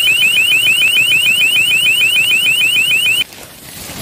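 Electronic alarm tone: a rapid run of short rising chirps, about eight a second, that cuts off suddenly about three seconds in.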